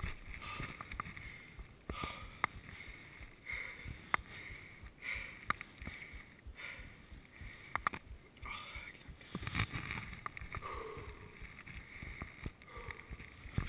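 Giant Trance full-suspension mountain bike rolling along a gravel and leaf-covered forest trail: uneven tyre rumble with sharp clicks and rattles from the bike scattered throughout.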